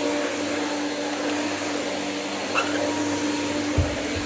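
Corded vacuum cleaner running steadily with a constant motor hum. There is a brief thump near the end.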